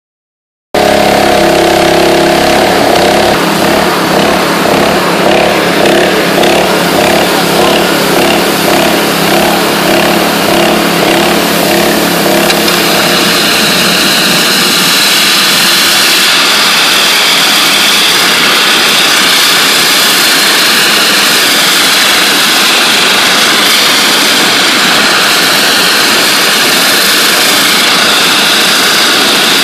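NLB Spin Jet rotary surface cleaner blasting ultra-high-pressure water (40,000 psi) from its spinning nozzles onto a floor, making a loud, steady jet hiss. For about the first dozen seconds a wavering hum runs under the hiss, then the hiss carries on alone.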